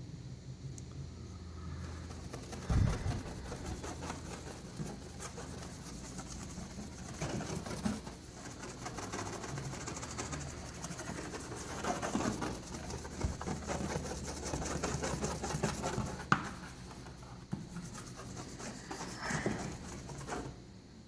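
Scratchy rubbing of a cloth or applicator scrubbing baking-soda paste over car paint, swelling and easing in strokes. A dull thump comes about three seconds in and a sharp click near the middle.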